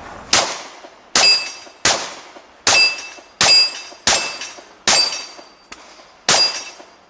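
Glock 30 .45 ACP pistol fired about eight times at a steady pace, most shots followed by the ringing clang of a hit steel plate.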